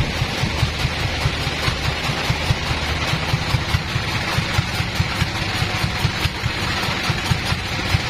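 Band sawmill's engine running steadily at idle, a low pulsing beat of several pulses a second, while the log is loaded and nothing is being cut.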